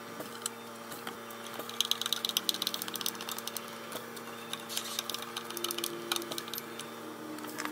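Hand screwdriver driving a screw through a metal drawer slide into a wooden drawer panel, giving a rapid run of small clicks and ticks that is busiest in the first half.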